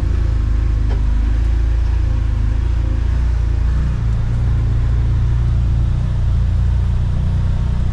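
Side-by-side UTV engine running steadily under way on a trail, a low drone whose pitch steps up slightly about four seconds in.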